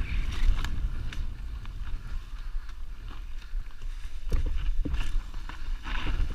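Mountain bike ridden fast down a dirt forest singletrack: wind rumbling on the helmet-mounted microphone, with the bike's chain and frame rattling and knocking over roots and bumps, and a cluster of sharper knocks a little past halfway.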